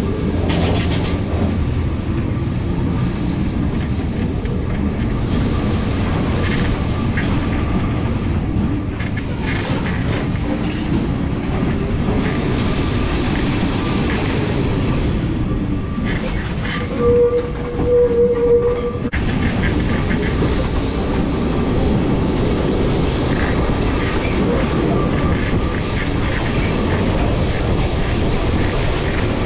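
Lisbon's number 28 vintage electric tram running: a steady rumble and clatter of steel wheels on the rails, with a slowly rising and falling motor whine in the middle and a brief, loud steady tone about two-thirds of the way through.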